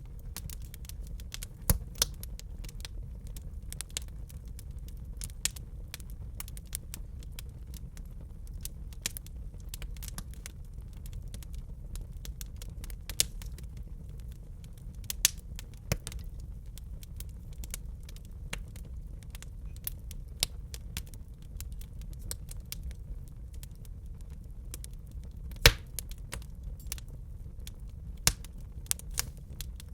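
Wood fire in a fireplace crackling, with irregular small snaps and several louder pops over a low, steady rumble of the burning logs.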